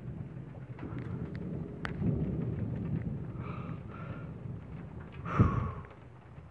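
Thunder rumbling from a nearby storm: a low roll that swells about a second in and dies away over a few seconds. A loud sharp knock comes about five seconds in.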